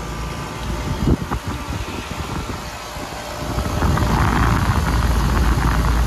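Carrier Comfort central air conditioner's outdoor condenser unit running steadily just after startup, its fan and compressor turning. A brief knock about a second in, then from about three and a half seconds in the sound grows louder and rushing as the microphone comes close to the fan.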